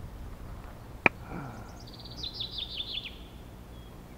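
A sharp knock about a second in, then a songbird sings one short phrase of about eight quick notes, each sliding down in pitch, the phrase falling as it goes.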